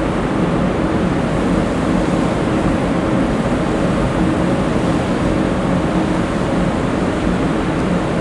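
Steady drone of ship engines at sea: a constant low hum over a wash of wind and water noise, unchanging throughout.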